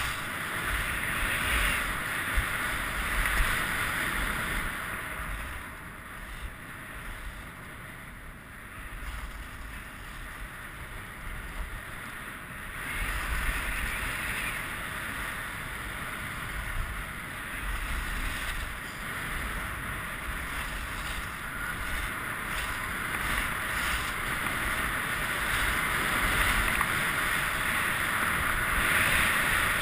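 Skis hissing and scraping over groomed snow on a downhill run, with wind buffeting the microphone. The hiss eases off for several seconds a few seconds in, then swells again and is loudest near the end.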